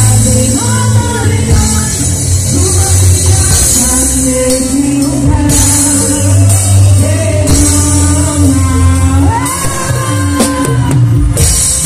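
A live band playing a worship song with a sung lead vocal over drum kit, cymbals, bass, guitar, keyboard and hand drums, loud and close to the stage.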